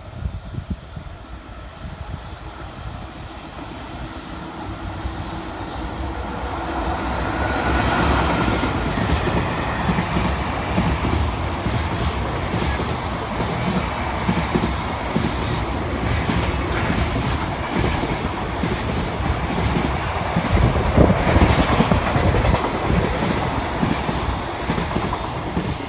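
JR freight train passing: the rumble builds over the first several seconds, then the wagons' wheels clatter steadily over the rail joints, loudest near the end before it starts to fade.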